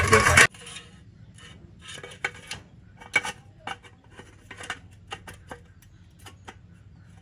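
Thin square steel tubes being handled and fitted together on a concrete floor: a dozen or so light, scattered clinks and knocks of metal. It opens with a loud noise that stops abruptly about half a second in.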